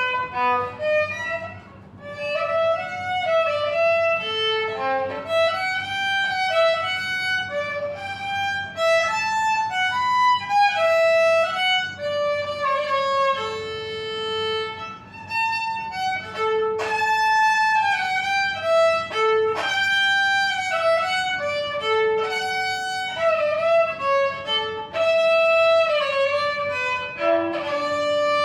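A bowed string instrument plays a solo melody, one line of held and gliding notes.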